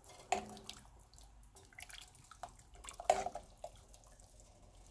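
Seasoned water being stirred in a cast iron stock pot: light splashing and dripping, with a couple of sharp knocks, about a third of a second in and around three seconds in.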